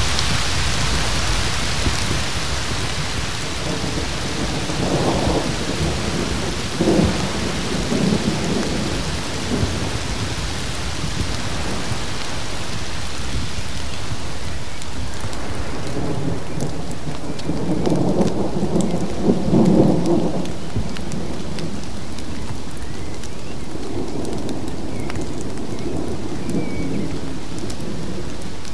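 Thunderstorm: steady rain hissing, with rolls of thunder rumbling over it. One comes about five seconds in, a louder one about two-thirds of the way through, and a fainter one near the end. The rain hiss thins out after about twelve seconds.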